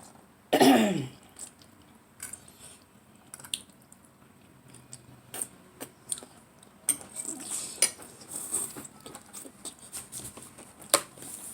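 Eating noises: a fork clinking against a plate and chewing, with a few sharp clicks spread through. About half a second in there is a short voiced sound falling in pitch, the loudest moment.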